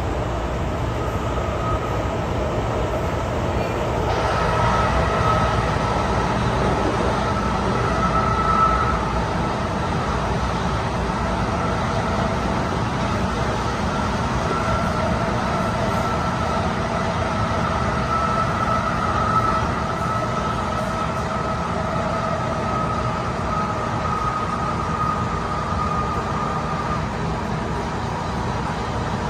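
MTR M-Train metro car running at speed through a tunnel, heard from inside the passenger car: a steady rumble of wheels on track with a faint steady whine over it.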